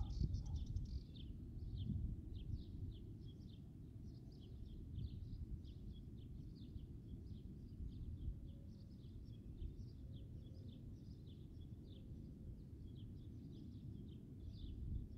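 Wind buffeting the microphone as a low rumble, strongest about the first second. Over it, small birds chirp constantly in short high notes, several a second.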